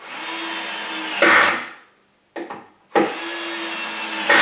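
A compact cordless drill-driver runs twice, each time for about a second and a half. Each run ends in a brief louder burst. It is driving screws through the drawer front from inside the drawer to fix a handle.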